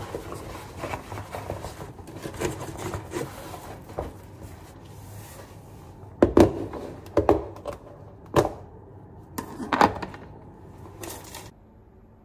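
Shopping bags rustling as groceries are unpacked, then about four sharp knocks and clacks as items, among them a plastic food container, are handled and set down.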